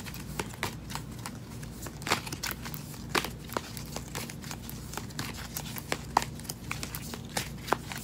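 A deck of round Motherpeace tarot cards being shuffled by hand: a quick, irregular run of card snaps and flicks, several a second.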